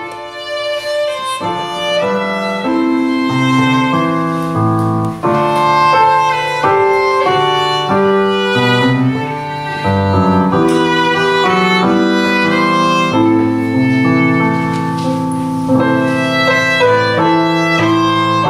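Instrumental music: a violin melody over piano accompaniment.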